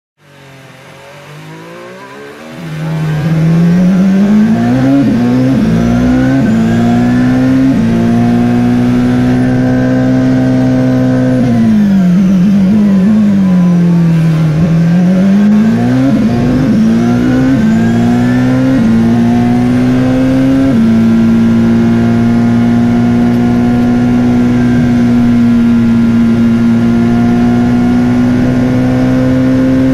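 Onboard sound of a Mercedes-AMG F1 W08's turbocharged V6 on a flying lap: it fades in, then revs up through a quick run of upshifts and holds flat out. A little before halfway the pitch drops under braking and downshifts, then climbs through the gears again and holds steady at full throttle.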